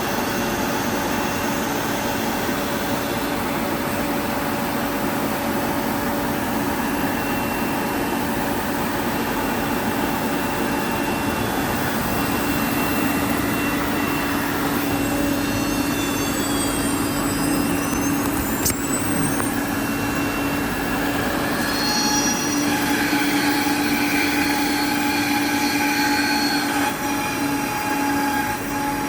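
Woodworking CNC router running, a steady machine noise with held whining tones from the spindle and drives. A few brief gliding whines come about halfway through, and new whining tones join in the last third.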